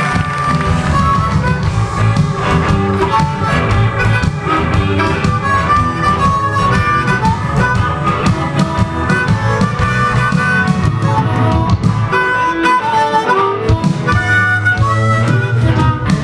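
Harmonica played live, a melody of short notes over a rhythmic band backing.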